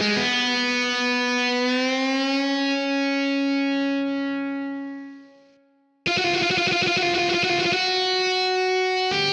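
GarageBand's virtual electric guitar (Hard Rock preset, overdrive and flanger pedals) plays one distorted note that is slowly bent upward, held and left to fade out. After a short silence it comes back with a fast-repeated note and then a held note.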